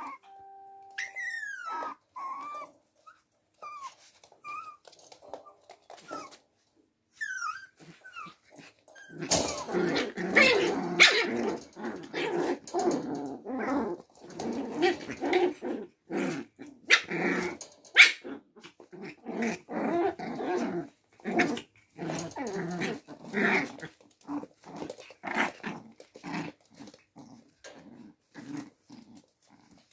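Six-week-old puppies play-fighting, growling and yapping. A few high squeaks in the first seconds give way, about nine seconds in, to a long dense stretch of growls and barks, which thins to short growls near the end.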